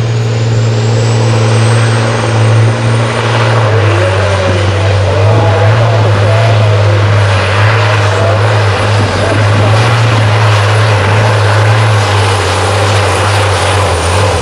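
Volvo FH race truck's tuned diesel engine running flat out under heavy load as it drags the weight-transfer sled. A high turbo whistle climbs over the first few seconds, then holds over the steady engine note.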